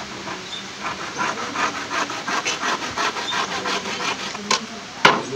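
Handsaw cutting through a thin wooden slat, its strokes rasping in a quick, steady rhythm. A sharp knock comes near the end.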